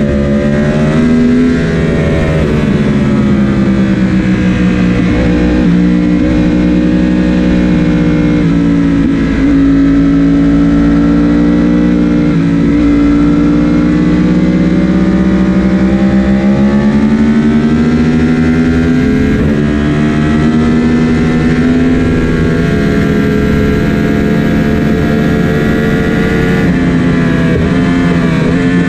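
Sportbike engine heard from the rider's seat, working hard on track. Its pitch climbs under acceleration and drops suddenly at gear changes and braking, several times over.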